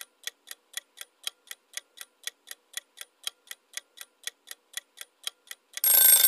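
Countdown-timer sound effect: a clock ticking steadily about four times a second, then near the end a loud ringing alarm bell goes off as the countdown runs out.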